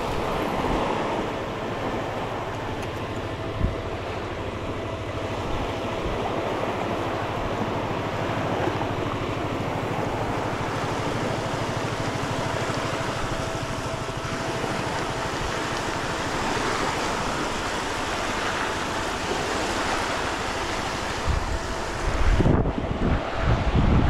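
Small waves washing onto a pebble shore, with wind rushing over the microphone. There is a single light knock a few seconds in, and the wind buffets harder near the end.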